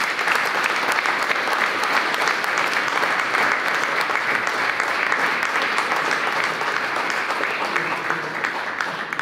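An audience applauding: dense, steady clapping that begins to thin out near the end.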